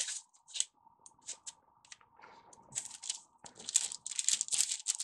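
Wax paper and butter paper rustling and crinkling in short, irregular bursts as pieces of cookie dough are lifted off the sheet and set down on a paper-lined baking tray.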